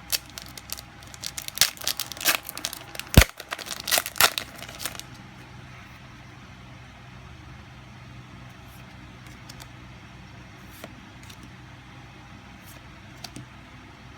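Foil booster pack of trading cards being torn open and crinkled, a quick run of sharp crackling tears over the first five seconds with one sharp knock about three seconds in, then only faint clicks of the cards being handled.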